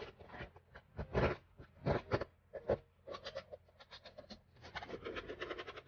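Hand-rubbing and scraping strokes on the reverse of a worn coated-canvas bag panel as crumbly residue is rubbed off. A few separate louder strokes come first, then quick back-and-forth rubbing over the last few seconds.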